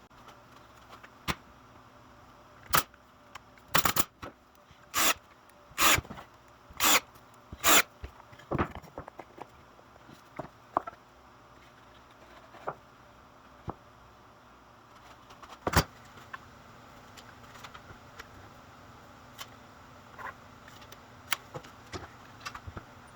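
A series of short sharp knocks and clacks. About six louder ones come in quick succession a few seconds in, then a single loud one later, with lighter ticks in between.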